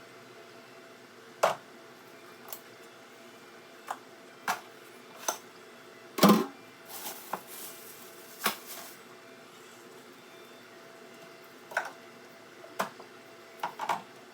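Items being handled in a fridge: scattered sharp knocks and clatters of containers and bottles being set down and moved on the shelves, the loudest a heavier thud about six seconds in, followed by a brief rustle. A steady low hum runs underneath.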